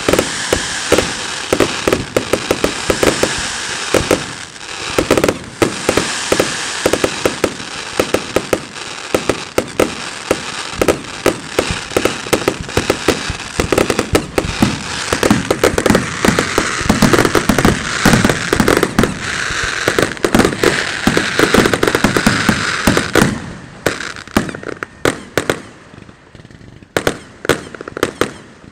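Fireworks display: a dense barrage of rapid, overlapping bangs from bursting shells over a continuous crackling hiss, thinning about 23 seconds in to scattered separate bangs.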